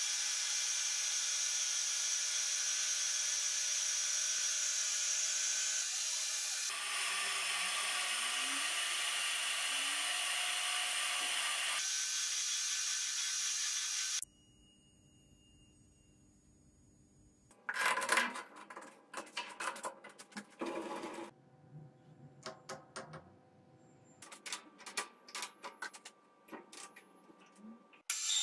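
Metal lathe running and turning a steel bar, a steady machine whine with cutting hiss. About halfway through it cuts off suddenly. After a few quiet seconds come irregular sharp metallic clicks and knocks of work at the stopped lathe.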